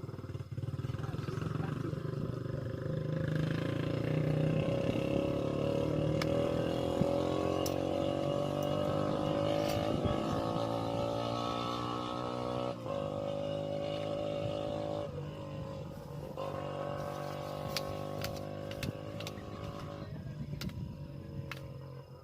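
Motor vehicle engine passing, its pitch climbing steadily for about ten seconds, then dropping suddenly and going on more evenly before fading near the end.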